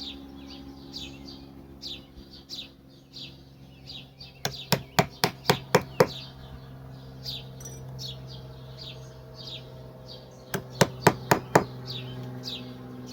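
Small birds chirping repeatedly over a steady low hum. Two quick runs of sharp knocks, about five a second, come a third of the way in and again near the end.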